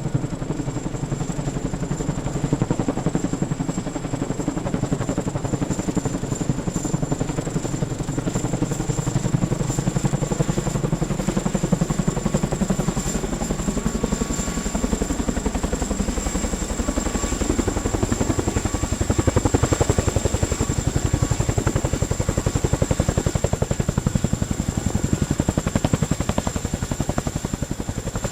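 CH-47 Chinook tandem-rotor helicopter running: a rapid, continuous rotor beat with a steady high whine above it. The low rotor sound grows heavier about two-thirds of the way through.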